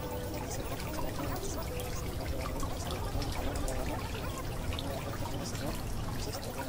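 Water trickling and pouring steadily.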